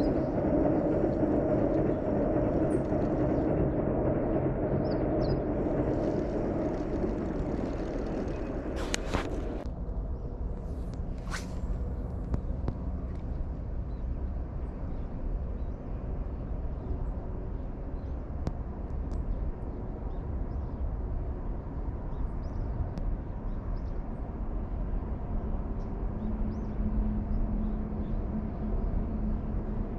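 Outdoor ambience: a steady low rumble and hiss. A louder rushing noise stops abruptly about nine seconds in, and two sharp clicks come around nine and eleven seconds.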